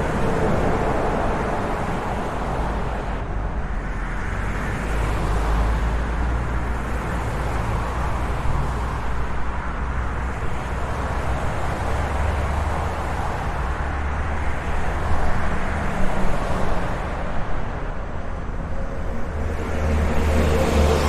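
Road traffic: a steady wash of cars passing with tyre noise and low engine rumble, swelling and fading as vehicles go by, with a few louder passes about three quarters of the way through.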